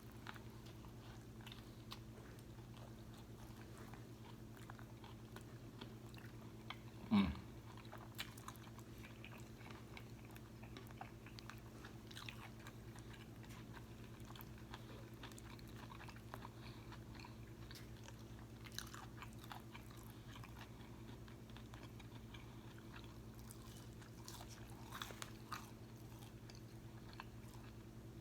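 Close-miked chewing and biting of a crispy fried fish sandwich: faint crunches and mouth sounds over a steady low hum, with one brief louder mouth sound about seven seconds in.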